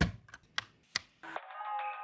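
A few sharp, separate clicks in the first second, then soft background music starting about a second and a half in.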